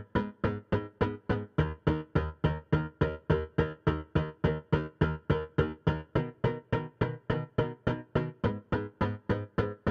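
Instrumental music: a short, quickly decaying keyboard chord repeated evenly about four times a second, with no vocals.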